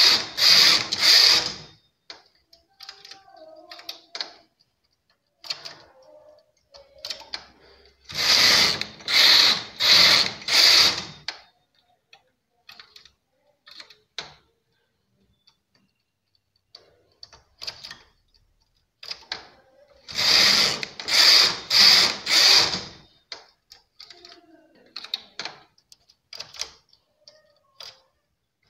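Domestic flatbed knitting machine with its carriage pushed back and forth across the needle bed, a loud rattling clatter. It comes in three bursts of about four quick strokes each: rows being knitted between shaping steps. Between the bursts come faint scattered clicks as stitches are moved by hand to decrease one needle at each edge.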